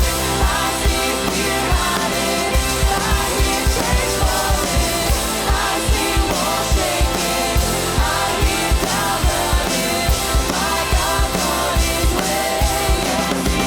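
Contemporary Christian worship music played by a full band with singing, over a steady beat of about two pulses a second.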